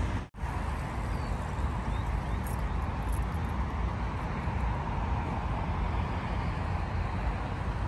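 Steady outdoor city background noise with a heavy, uneven low rumble; the sound cuts out for an instant near the start.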